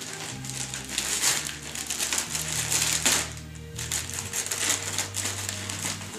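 Wrapping paper crinkling and tearing in irregular bursts as a small dog rips at a gift box, over background music with held low notes.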